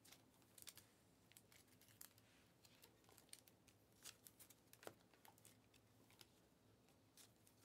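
Faint plastic rustling and light clicks of trading cards being handled and slid into soft plastic penny sleeves, in many short, scattered ticks.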